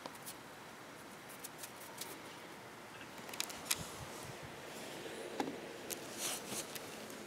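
Footsteps on coarse, granular snow: scattered light crunches and clicks, thickest in the middle of the stretch and again near the end.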